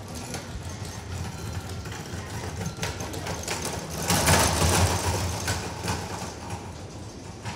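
Small hard wheels rattling over a tiled station platform, an even run of clicks as a rolling suitcase is pulled along, with a louder rush of noise about four seconds in that lasts over a second.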